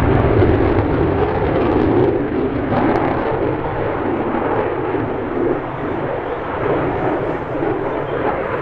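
Airplane engine noise, a loud steady rush that is strongest just after the start and slowly eases off, as an aircraft passes and moves away.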